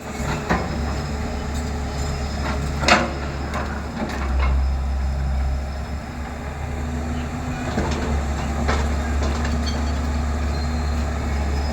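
Heavy diesel machinery running steadily with a deep rumble, broken by a few sharp metallic clanks, the loudest about three seconds in, typical of a backhoe loader at work near a tipper truck.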